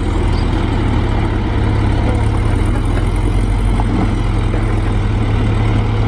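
Loaded dump truck's diesel engine running steadily at low revs, a constant low drone.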